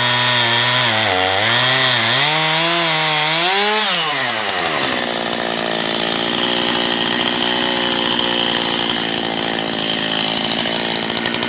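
Two-stroke chainsaw on a chainsaw mill, ripping a log lengthwise: under load the engine speed wavers up and down. About four seconds in, the revs climb sharply and then hold steady at a higher pitch.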